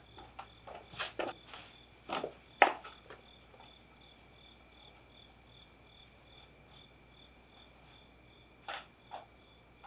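Crickets chirping outdoors at night: a steady high trill with a regular chirp about three times a second. Footsteps and short knocks sound over it in the first three seconds, and two more just before the end.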